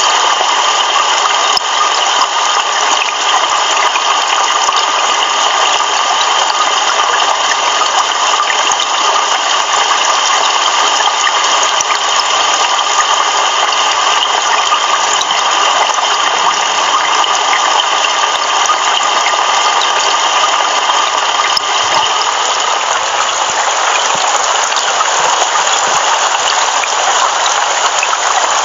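Heavy rain pouring steadily, an even loud hiss; its texture shifts about 22 seconds in.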